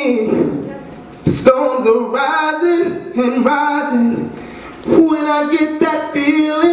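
A man singing into a microphone with no accompaniment, holding long notes that bend in pitch.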